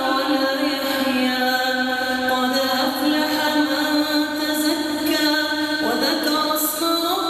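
Melodic Quran recitation: a single voice chanting in long, drawn-out notes that slide between pitches, with a rising glide about six seconds in.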